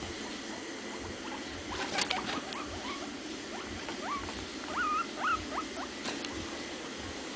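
Guinea pig squeaking: a run of short rising squeaks, several of them held as brief whistles just after the middle of the clip. Two sharp taps cut through, the louder one about two seconds in.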